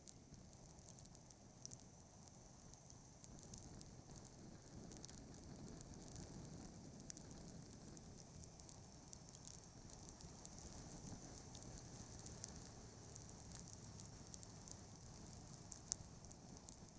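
Near silence: faint, irregular crackling over a steady high-pitched hiss.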